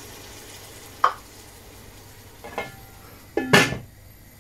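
Onions cooking in an aluminium pan give a faint steady hiss. There is a small knock about a second in and another a little later, then the aluminium lid clanks down onto the pan and rings briefly about three and a half seconds in.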